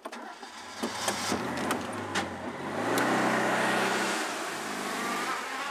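Citroën Méhari's small two-cylinder engine running and revving as the open car pulls away, its pitch rising to a peak around three seconds in and easing off about a second later. A few sharp knocks in the first two seconds come from people climbing aboard.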